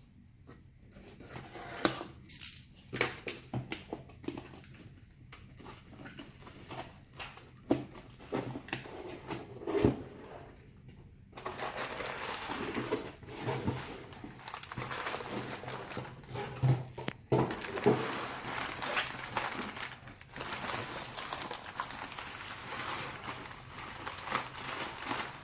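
Replacement laptop screen's packaging being handled and opened: scattered clicks and knocks, then from about halfway a continuous crackly rustling of plastic wrapping.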